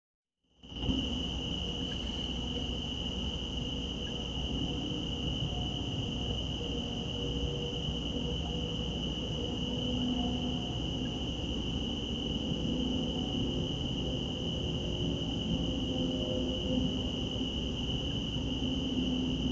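Crickets calling in a steady night chorus, a continuous high-pitched trill that starts after a brief silence, over a low background hiss.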